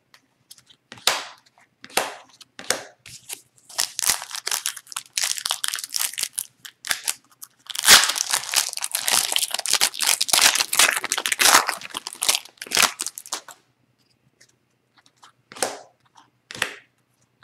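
A foil hockey card pack wrapper being torn open and crinkled, in a dense run of crinkling from about eight seconds in to about thirteen. Before and after it come short rustles and flicks of trading cards being handled.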